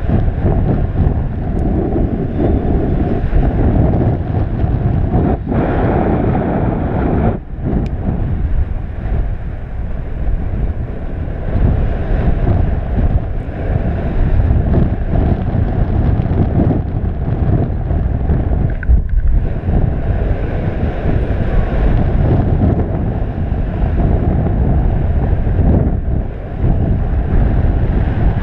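Airflow rushing over the camera's microphone during paraglider flight: loud, steady wind noise, heaviest in the low end, with no letup.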